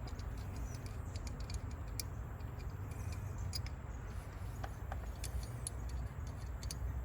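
Faint, scattered light clicks and ticks of small metal engine parts being handled: coil-pack bolts being unscrewed by hand and lifted out. A low steady rumble lies underneath.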